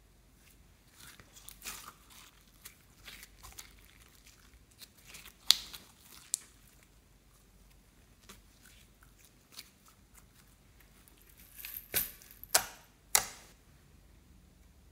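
Clear glitter slime being stretched and pulled by hand, giving sticky crackles and scattered sharp pops, with three loud pops close together near the end.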